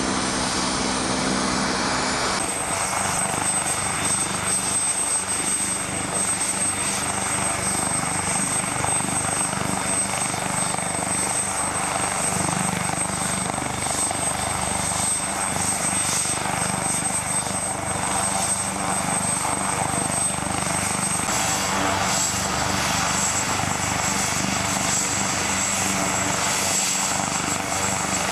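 AgustaWestland AW139 twin-turbine helicopter on the ground with its rotors turning. It makes a steady turbine whine with a thin high whistle over the rotor noise, and the whistle drops slightly in pitch about two-thirds of the way through. For the first two seconds or so, an AgustaWestland A109 helicopter climbing overhead is heard, until it is cut off abruptly.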